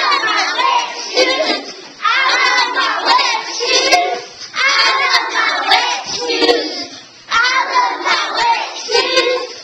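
A group of young children singing together, the same short line repeated about four times in a row.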